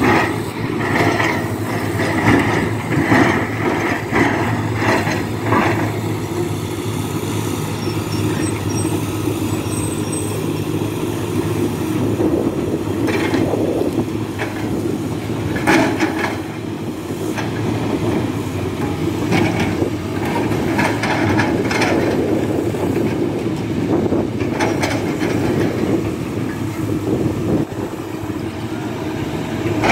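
Tata Hitachi hydraulic excavators' diesel engines running steadily under working load, with clusters of clanks and knocks from the machines and rock.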